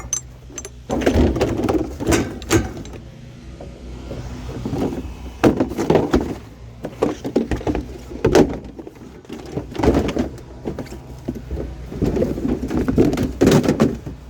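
Repeated irregular knocks and thuds of scrap items being handled and loaded into a vehicle, over a steady low engine hum.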